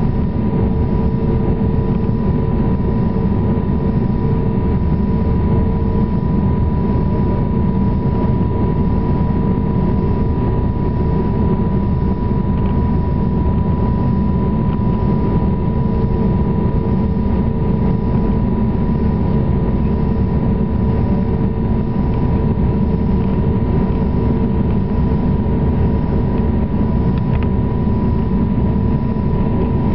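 Aircraft cabin noise in flight: a loud, steady rumble of engines and airflow with a constant high whine and a fainter lower hum running through it.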